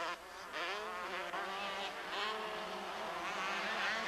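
Two-stroke motocross bike engines revving, their buzzing pitch rising and falling with the throttle as the bikes race on a dirt track; more than one engine is heard at once.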